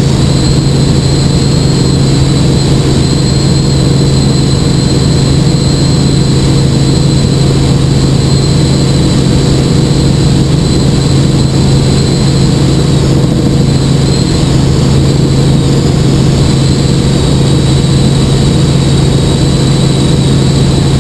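Helicopter in steady forward flight heard from inside the cabin: an even, loud drone of engine and rotor with a constant low hum and a thin high whine above it.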